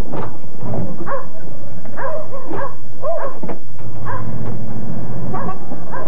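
A dog barking repeatedly, a run of short, sharp barks.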